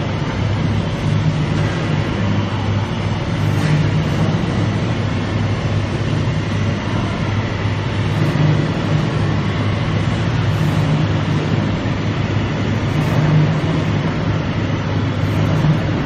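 Rice husk carbonization furnace line running in a workshop: a steady, loud machine drone with a strong low hum and broad rushing noise, no change in pace.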